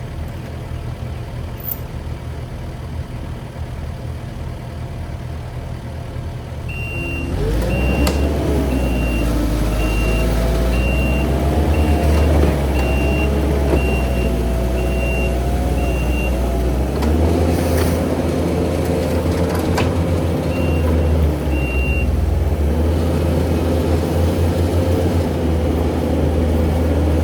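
Skid steer engine idling, then revving hard about seven seconds in, with a wavering whine, as the stuck machine strains to climb out of quicksand. Its backup alarm beeps steadily while it reverses, stops around sixteen seconds, and returns briefly twice later.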